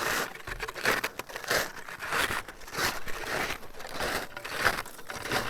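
Footsteps crunching on loose volcanic scree and ash, a step about every two-thirds of a second at a steady walking pace.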